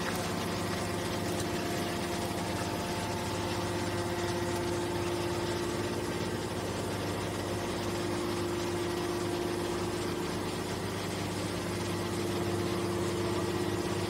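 Hydraulic metal scrap baler's power unit (electric motor and hydraulic pump) running with a steady hum while the ejector ram pushes a compressed bale of metal shavings out.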